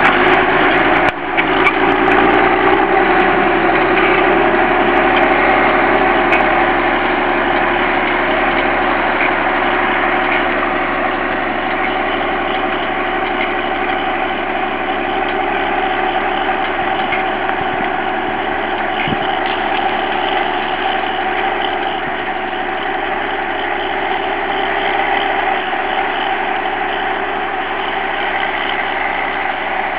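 Fiatagri 160-90 DT tractor's six-cylinder turbo diesel engine running steadily under load while pulling a mounted plough, growing slightly fainter as the tractor moves away. A few sharp clicks come in the first second or so.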